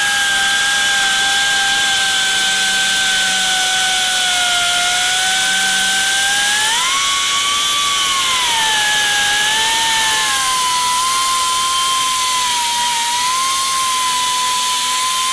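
Air-powered die grinder running at high speed as its bit cuts into a Mazda 13B rotary's cast-iron side housing to open up the intake port: a steady whine whose pitch sags and recovers as the bit bites. About two-thirds of the way through the whine jumps to a steadier, slightly different pitch.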